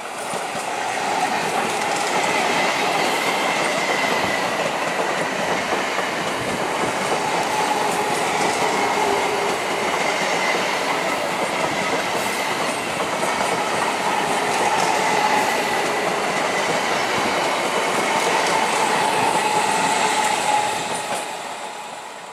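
Indian Railways Kolkata suburban EMU local train running past at speed: a steady rush of wheels on rail with a clickety-clack over the joints and a wavering whine above it. It swells in the first second and fades away about a second before the end.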